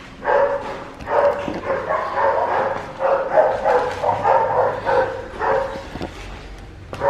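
A dog barking over and over in short, high-pitched barks, stopping about a second before the end.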